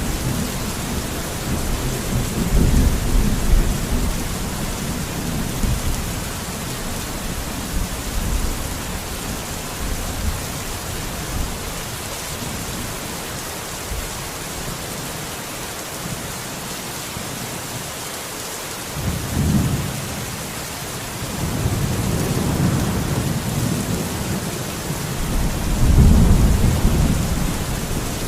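Steady rain with rolling thunder: deep rumbles near the start, a short one past the middle, then a longer rumble building through the last third.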